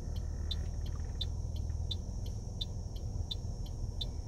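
Car engine idling while the car stands still, a steady low rumble, with a short high tick repeating evenly about every three-quarters of a second.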